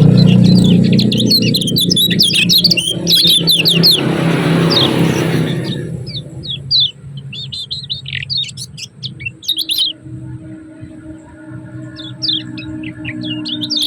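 Kecial kuning white-eyes giving rapid, high 'ciak ciak' chirps, a dense flurry for the first six seconds or so, then sparser bursts. A low rumble sits under the first half, and faint steady tones come in near the end.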